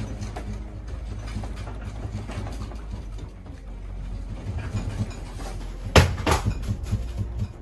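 Low rumble with a light rattle of furniture and objects as a room shakes in an earthquake. About six seconds in comes a sharp bang, followed by a few more knocks and clatters.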